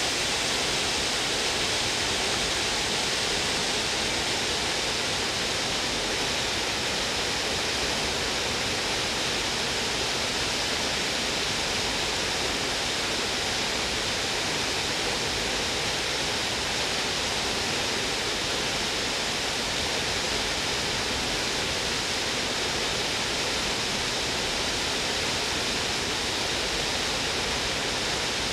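Trevi Fountain's cascades pouring over its rocks into the basin: a steady, unbroken rush of falling water.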